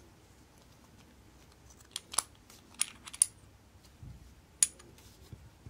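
Sharp metal clicks from the stainless steel caseback of an Omega Constellation watch as it is removed by hand: a quick cluster of four clicks about two seconds in, then one more clear click over a second later.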